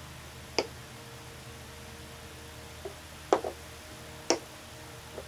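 Wooden chess pieces being set down on a chessboard: a handful of sharp, separate clicks, one of them a quick double, over a faint steady hum.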